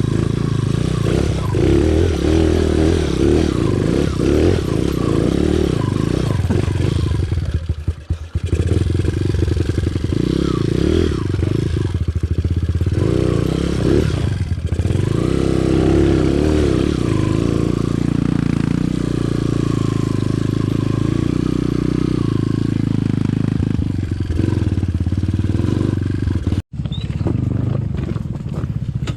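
Off-road trail motorcycle engine running while riding, its revs rising and falling with the throttle. The sound drops out for an instant near the end.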